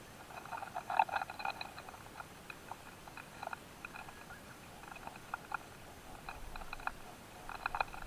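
Irregular clicks and scratchy crackles from quail stink bugs (Aelia fieberi) gripping and crawling on a grass seed head as a rival male clambers around a mating pair. The clicks bunch up about a second in, again around the middle, and near the end.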